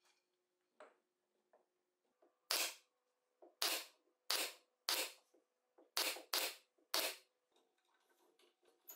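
Pneumatic nail gun firing seven times into glued plywood strips, each shot a sharp snap with a quick hiss of air, spaced unevenly over about four and a half seconds and starting a couple of seconds in.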